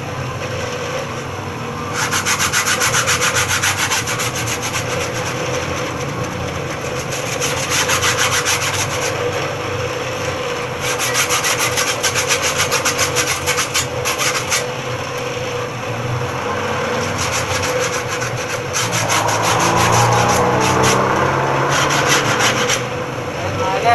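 Steel hand-saw blade held against a motor-driven grinding wheel in four passes of a few seconds each, a rapid rasping chatter as the toothed edge runs across the wheel, over the steady hum of the running motor. The teeth of a homemade hand saw are being ground.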